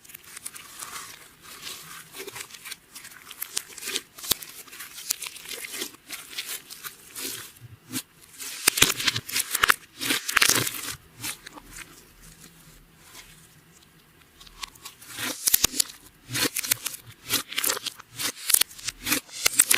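Clear slime being squeezed and mixed by hand, with makeup and glitter worked in, giving irregular wet crackles and sharp pops. It grows louder near the middle, eases off briefly, then picks up again.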